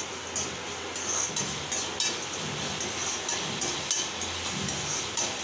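Metal ladle scraping and clinking against a metal kadai in repeated strokes as chopped onions and tomatoes are stirred, frying in oil with a steady sizzle.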